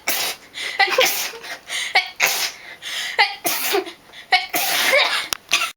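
A girl sneezing on demand several times in a row, a sharp burst about every second. The sound cuts off suddenly near the end.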